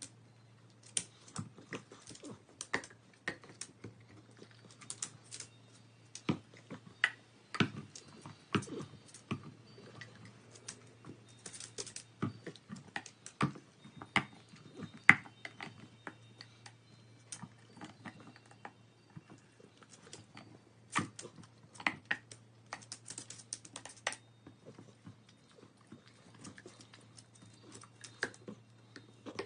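A dog chewing and gnawing a rubber chew ball on a suction-cup rope toy, teeth and toy making irregular clicks and taps.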